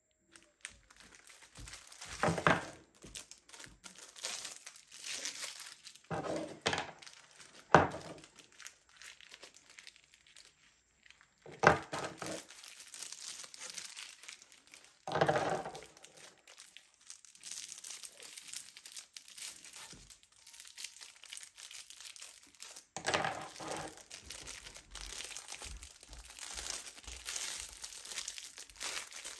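Crinkling and rustling of clear plastic sleeves as makeup brushes are pulled out of their packaging, in irregular bursts, with a few sharper knocks.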